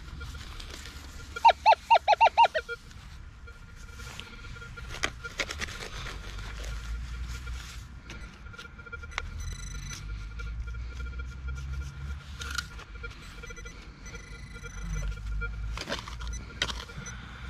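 A metal detector giving a quick run of about six loud beeps about one and a half seconds in, the signal of a buried metal target. Faint knocks and scrapes follow later on.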